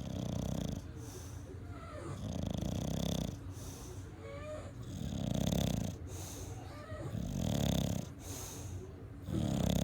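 English bulldog snoring, one snore about every two and a half seconds, with faint whistling between the snores.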